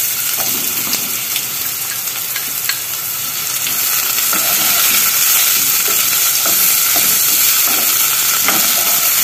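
Onion, bell pepper and freshly added diced tomato sizzling in olive oil in a pan, stirred with a wooden spoon that scrapes the pan as it goes.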